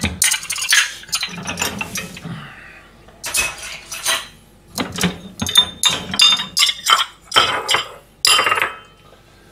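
Dishes clinking and clattering as they are unloaded from a dishwasher's wire rack and put away: a busy run of short sharp knocks and clinks, with a few longer clatters.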